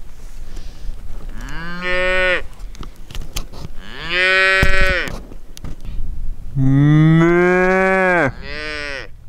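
Cattle mooing: four moos in turn, the third the longest and loudest and the last a short one near the end.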